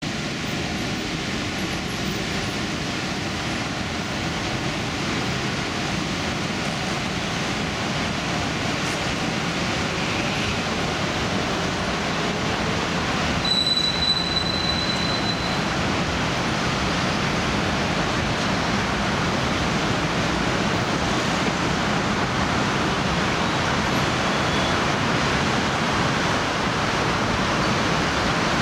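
Dense road traffic on a wet multi-lane road: a steady wash of tyre hiss and engine noise from cars, buses, trucks and motorcycles, growing a little louder toward the end. About halfway through, a high thin squeal sounds for about two seconds.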